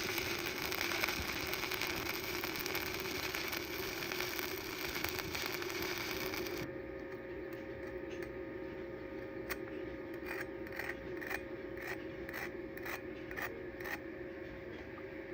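Electric arc welding crackling and hissing steadily, the arc cutting off about seven seconds in. After it a faint steady hum remains, and from about halfway a series of about ten short, light metallic taps follows.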